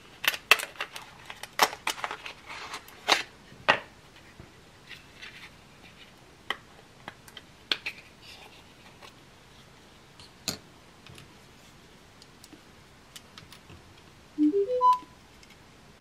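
Clicks and taps of a small sound machine being handled, densest in the first few seconds and thinning out. About a second before the end, a short rising four-note electronic chime as the Sound Oasis BST-80 sound machine starts up.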